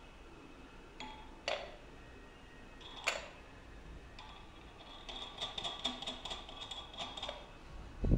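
Steel clamp plate and nut being fitted onto a threaded stud: a few separate metal clinks, then a quick run of light ticks with a ringing note as the nut is spun down the thread, and a dull knock near the end.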